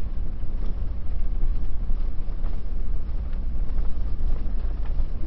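Pickup truck's engine running with a steady low rumble as it tows a fifth-wheel camper at low speed; the truck has a little bit of exhaust leak.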